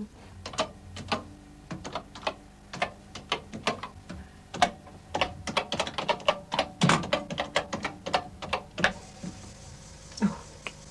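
Keys of a microcomputer keyboard being typed on, in irregular runs of clicks that thicken midway and stop a couple of seconds before the end.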